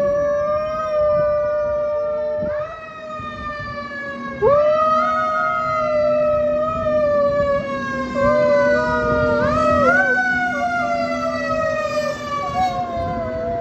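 Fire truck siren that climbs sharply three times and slowly falls in pitch between climbs, while a border collie mix howls along with it, its howl wavering up and down.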